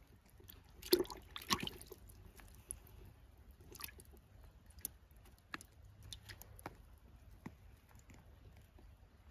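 Hand splashing in a plastic bucket of water while catching a small fish, with a brief burst of splashing about a second in, then scattered drips and small splashes.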